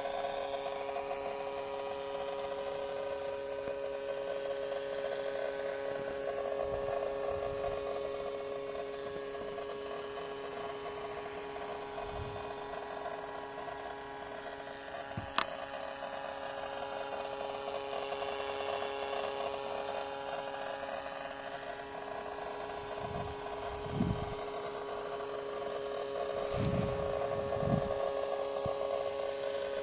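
Acer Predator 17 gaming laptop under heavy CPU/GPU load giving off a steady electrical whine of several held tones with a rough, inconsistent grinding buzz over it. This is coil whine and electrical discharge, not a mechanical noise, and it is the sign of a faulty motherboard. A few soft thumps and one sharp click come from the phone being moved against the case.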